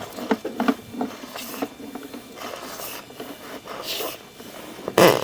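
Sewer inspection camera's push cable scraping and clicking as it is worked through the drain line, with a louder sharp knock near the end.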